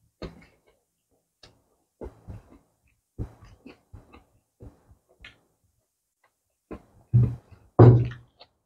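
Close-up eating sounds of a person eating by hand: short, spaced-out wet chewing and lip smacks from biting into tomato slices, with two louder sucking smacks near the end as the fingers go to the mouth.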